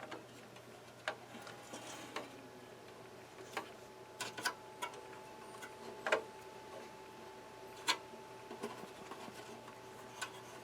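Faint, scattered small metal clicks and taps, a second or more apart, from a small PH0 screwdriver and a tiny M.2 screw being worked into the standoff that holds the SSD to the motherboard.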